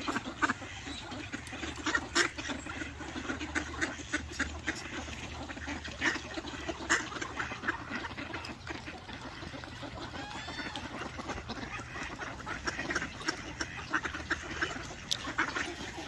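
Ducks quacking, many short calls close by and scattered throughout, with a brief higher bird call about ten seconds in.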